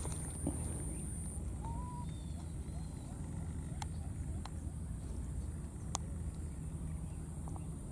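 Outdoor marsh ambience: a steady low rumble with a thin high steady whine, one short chirp-like call about two seconds in, and a few sharp clicks.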